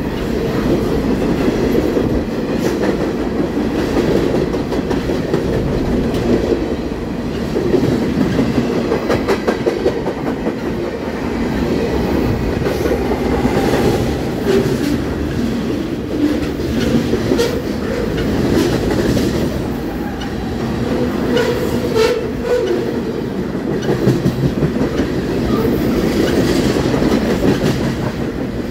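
Freight train of hopper and tank cars rolling past close by at a steady speed: a loud, continuous rumble of steel wheels on rail, with clusters of sharp clicks and clacks from the wheels.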